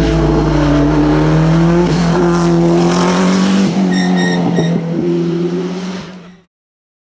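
Rally car engine running hard, its pitch rising and falling with the revs, then fading out and stopping about six seconds in.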